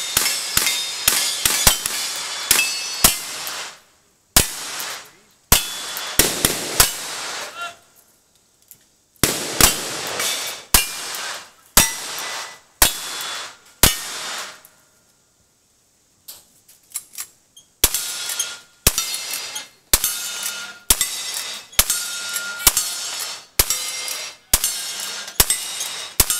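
A cowboy action shooting stage: a fast string of revolver and rifle shots, each answered by the ring of a steel target. There is a pause of about two seconds midway. After it come rifle shots at about one a second, each followed by a short metallic ring.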